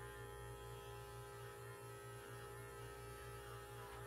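Electric pet grooming clippers running with a faint, steady hum while trimming a poodle's face.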